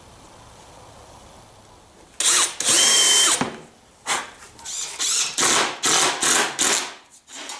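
DEWALT cordless drill/driver driving screws into plywood: one longer run starting about two seconds in, then a string of short trigger bursts.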